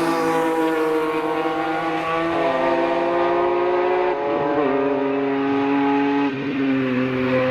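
BMW E46 M3 engine accelerating hard under load, its pitch climbing slowly and then dropping in three steps, about two, four and a half, and six seconds in, as it upshifts through the gears.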